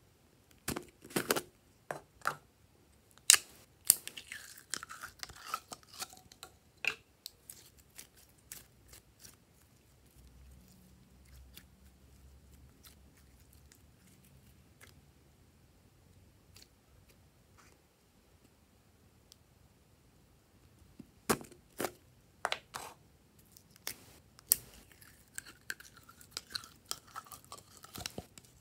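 Hands working slime: sharp crackling clicks and pops as it is pulled from its container and pressed. These are followed by a quieter stretch of faint sticky crackles while glittery slime is stretched over the dish. From about 21 seconds, loud clicky crackling starts again as more slime is scooped out of a jar.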